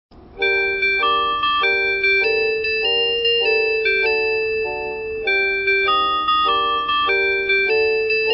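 JR West train's onboard announcement chime: an electronic keyboard-like melody of clear, evenly spaced notes, starting about half a second in.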